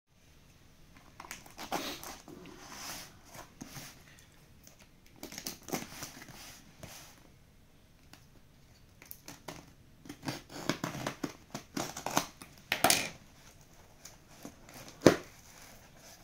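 A box cutter slicing packing tape on a cardboard box, with the tape and cardboard crinkling and ripping in short bursts as the flaps are pulled open. One sharp click near the end.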